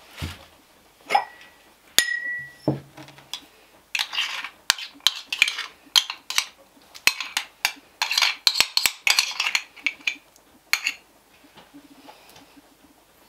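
Ceramic dishes clinking and knocking: a few knocks as a clay bowl and a porcelain dish are handled, one clink ringing briefly, then a quick run of clicks and scrapes as butter is worked out of a small porcelain bowl into a terracotta bowl.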